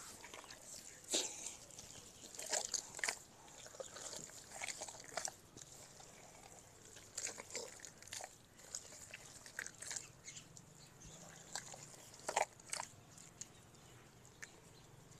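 Hands kneading and squelching wet mud plaster mixed with straw chaff in a metal tub: faint, irregular wet squishes and crackles.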